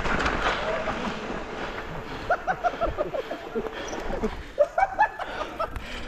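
Mountain bike riding on a dirt trail: tyre and frame rattle noise with wind on the microphone. About two seconds in, and again near the end, come runs of short, falling, squeaky chirps.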